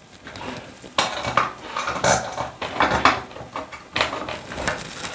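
Light metal clinks and rattles from a vanity-light mounting bracket and its screws being handled against an electrical box, with sharp clicks about a second apart.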